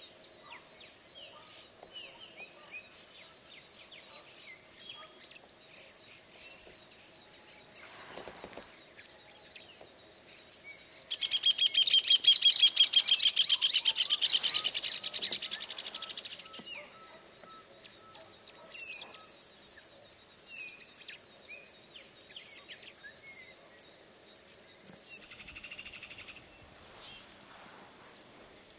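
Wild small birds chirping and calling in a wetland. About eleven seconds in, a loud, rapid trill starts abruptly and fades out over about five seconds.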